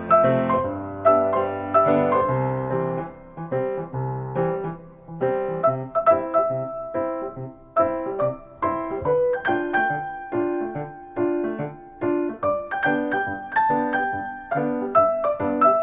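Background piano music: a gentle melody played note by note over chords.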